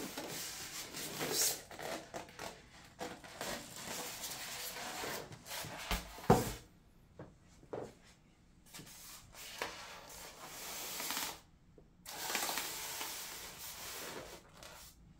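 Styrofoam (expanded polystyrene) box lid and foam packing rubbing and scraping against each other in irregular bursts as the lid is worked loose and lifted off, with one sharp thump about six seconds in; more foam-on-foam scraping follows as the foam tray is handled.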